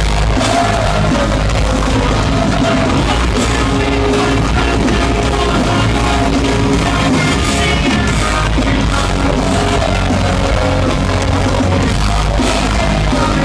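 Pop-punk band playing live and loud, heard from within the crowd through a phone microphone: electric guitars, bass and drums running continuously.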